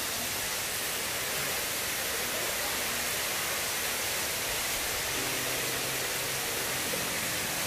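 Waterfall at Sipi Falls: a steady, even rush of falling water.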